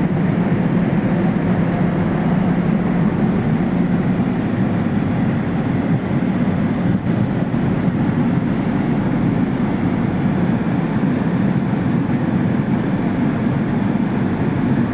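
Steady low rumble of a ferry's engines and machinery heard from aboard the ship as it comes in to berth.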